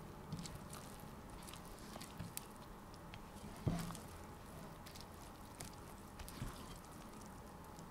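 Wooden spatula stirring thick vegetable pancake batter in a glass bowl: faint wet squishing with small clicks, and one louder knock about halfway through.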